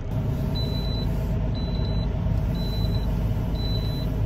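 Semi truck's engine running with a steady low rumble, and a short high electronic beep repeating about once a second.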